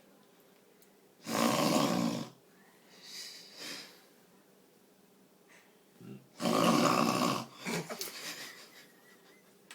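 A person snoring: two loud snores, each about a second long and about five seconds apart, with softer breaths between them.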